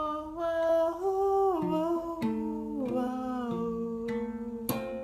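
Ukulele played with plucked, ringing notes under a woman's voice holding long sung notes that slide down in pitch a couple of times. The voice stops about three and a half seconds in, and the ukulele notes carry on alone.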